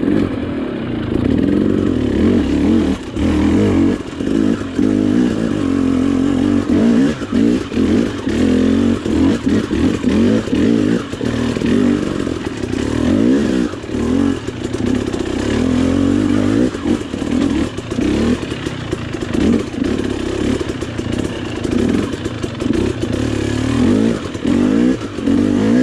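KTM dirt bike engine riding a rocky forest single track, its pitch rising and falling constantly with the throttle, over frequent knocks and clatter from the bike bouncing over rocks.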